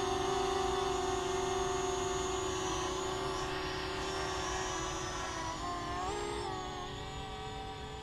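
Parrot Anafi quadcopter's propellers whining steadily in flight. The pitch wobbles and rises briefly about six seconds in, and the sound slowly fades as the drone flies away.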